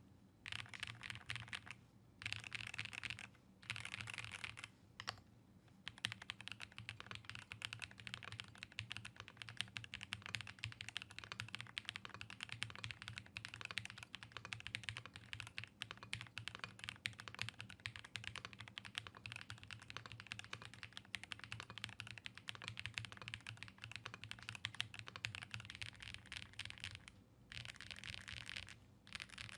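Angry Miao Cyberboard mechanical keyboard fitted with the Typing Experience Upgrade Kit, typed on quickly in a dense stream of key clicks. There are a few short pauses in the first five seconds and one near the end.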